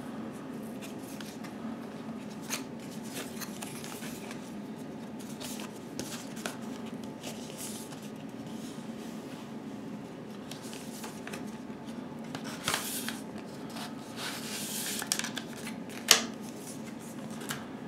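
Faint rustling and light tapping of a cardboard mini-LP replica CD sleeve being handled, its gatefold opened and closed, over a steady low hum. A few louder rustles come near the end, with one sharp tap.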